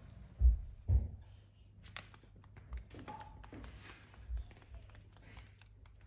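Two dull thumps about half a second apart, then light scattered taps of cockatiels' claws on a hardwood floor as they walk.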